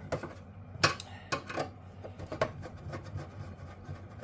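Hand tools clicking and scraping against the metal case of a backup power supply as its screws are undone by hand: a scatter of sharp clicks and knocks, the loudest a little under a second in, with rubbing between them.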